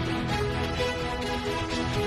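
Background music with held notes over a steady bass, cutting off sharply shortly after.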